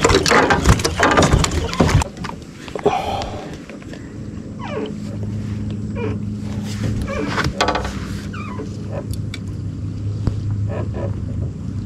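A run of knocks and clatter for about two seconds as a hampala barb is handled in a landing net among other caught fish in the boat, then a steady low hum with a few short falling squeaks.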